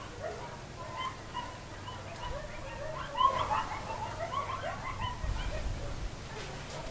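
A pack of coyotes calling in chorus: many overlapping short yips and wavering howls, busiest and loudest about three seconds in.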